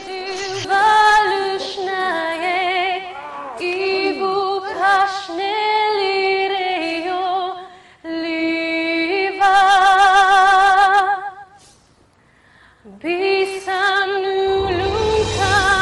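A woman singing a slow, drawn-out melody with heavy vibrato in long held phrases. There is a short break about twelve seconds in, and a low accompaniment comes in near the end.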